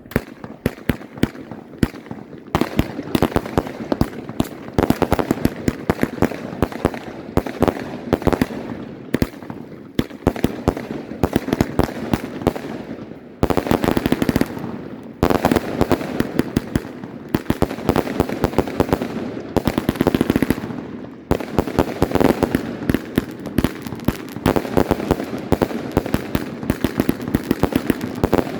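Albert 'King of Bling' firework battery firing in rapid volleys: a dense run of sharp bangs, many a second, with two brief lulls around the middle.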